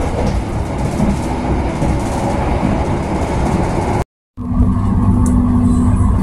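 Steady running noise of a moving passenger train, heard from inside the carriage. The sound cuts out for a moment about four seconds in, then comes back as a steady noise with a constant low hum.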